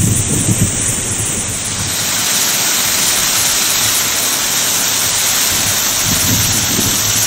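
Small waterfall pouring over a rock ledge onto stones: a steady rush of falling water, with wind buffeting the microphone at the start.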